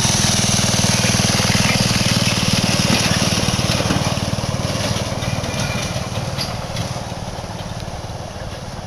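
Small 5 hp single-cylinder engine of a homemade ATV running steadily, growing gradually fainter over the second half.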